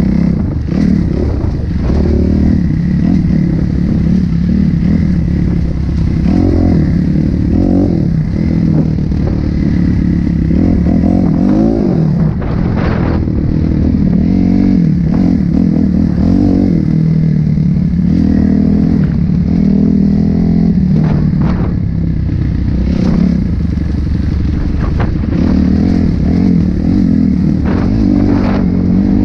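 Dirt bike engine running loud under constant throttle changes, its pitch rising and falling again and again as it is ridden over a rocky trail. Now and then there are sharp clattering knocks from stones and the bike's chassis.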